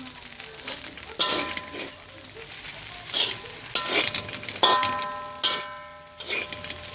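Fried rice with small prawns sizzling in a pan while it is stir-fried. A metal spatula scrapes and strikes the pan about five times, each strike ringing briefly.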